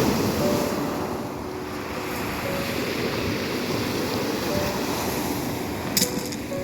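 Sea waves washing onto the shore, with wind buffeting the microphone. There is a brief sharp crackle near the end.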